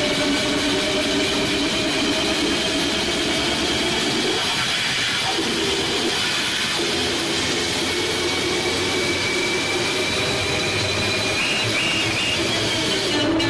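Large DJ loudspeaker rig at a sound check, playing a loud, dense wash of sound with several held tones and no clear beat.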